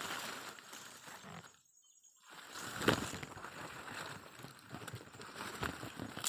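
Outdoor background noise with scattered clicks and knocks, as of a camera being handled among leafy coffee bushes. The loudest knock comes about three seconds in. The sound cuts out almost completely for a moment about two seconds in.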